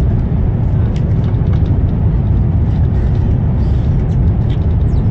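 Steady low rumble of a high-speed train running, heard from inside the passenger carriage.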